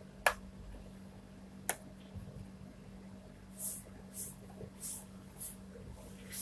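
A children's sound board book being handled: two sharp clicks, then, about halfway through, a run of five short, high swishing bursts at roughly two a second, as if the book is being shaken.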